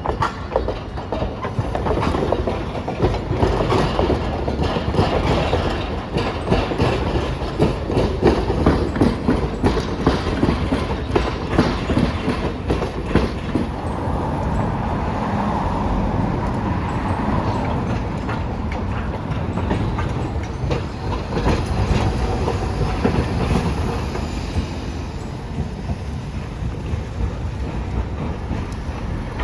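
Hiroshima Electric Railway streetcar running through the street junction, its wheels clacking steadily over the rails. A higher whine rises for a few seconds around the middle.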